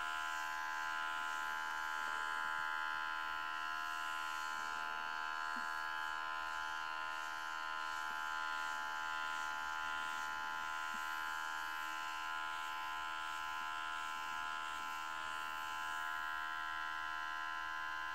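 Small cordless battery-powered airbrush compressor running continuously with a steady, high-pitched buzz while the airbrush trigger is held open and spraying paint, with a light hiss of air. It keeps running without a break under continuous air draw.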